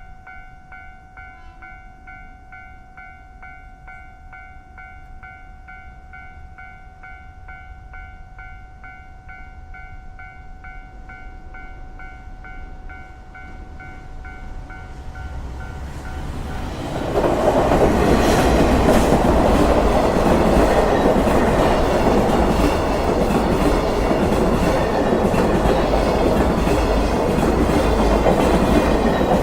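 Railway level-crossing warning bell ringing in a steady repeating pattern while a train approaches. The train grows louder and passes close by over the last part, its wheels clattering over the rail joints.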